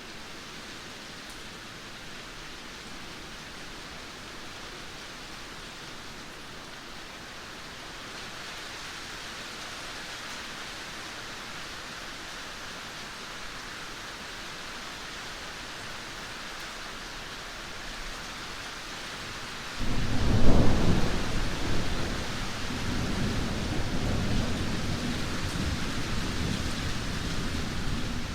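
Heavy rain falling as a steady hiss; about two-thirds of the way in, a loud clap of thunder breaks in and a deep rumble rolls on under the rain to the end.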